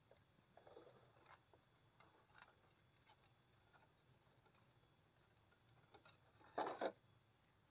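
Near silence broken by faint scattered ticks and, about six and a half seconds in, two short knocks close together: a clear plastic insect box being handled.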